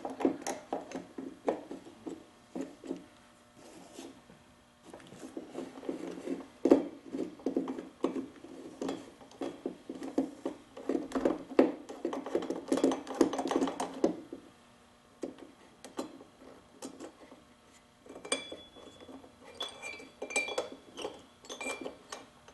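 Metal hand tools and screws clicking and clinking against the engine of a Husqvarna 150BT backpack blower while the cylinder's hold-down screws are being removed. A dense run of rapid clicks comes in the middle, and a few light ringing clinks of metal come near the end.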